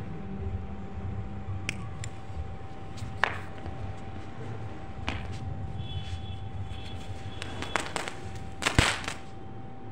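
Small firecracker after lighting: scattered single sharp cracks, then a dense run of crackling as it flares into a burst of sparks near the end.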